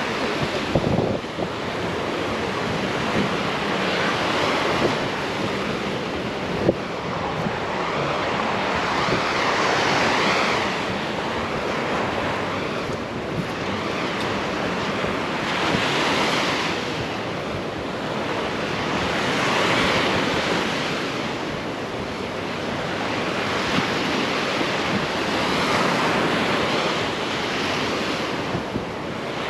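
Ocean surf breaking on a beach, swelling and fading every few seconds, with wind buffeting the microphone. There is a brief sharp knock about seven seconds in.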